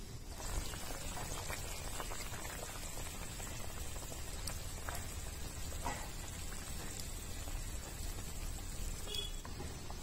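Fish curry simmering in an iron kadhai over a wood fire: a steady bubbling with scattered small pops and crackles.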